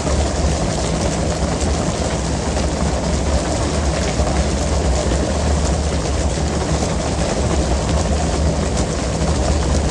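A fishing boat's engine running steadily, with a constant rush of water spray and sea around the hull.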